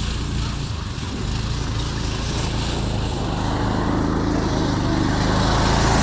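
Gemini off-road buggy engines running on a dirt track, steady, growing louder near the end.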